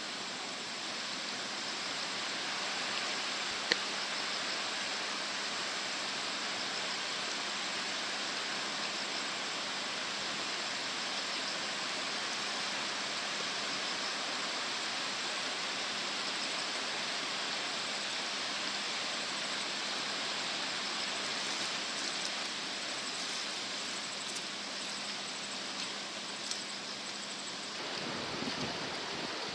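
Steady rushing of a flood-swollen river's fast water, with a faint click about four seconds in and a few light ticks near the end.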